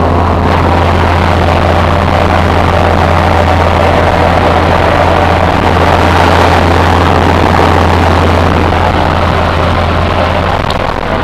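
Jump aircraft in flight heard from inside the cabin with the jump door open: a steady low engine drone under loud rushing wind from the doorway, swelling slightly around the middle.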